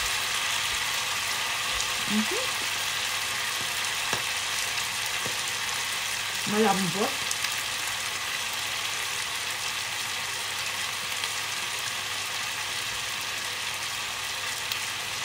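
Chicken feet in soy and oyster sauce sizzling in a frying pan on the stove: a steady frying hiss that holds even throughout.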